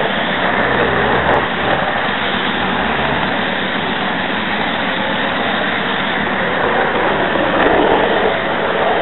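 Model train running along the layout's track, heard through a small camera riding on it: a loud, steady rushing noise of the motor and wheels on the rails.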